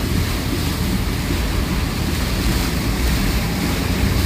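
Heavy rain on a moving car and tyres hissing over the wet road, heard from inside the cabin as a loud, steady rushing noise with a low rumble beneath.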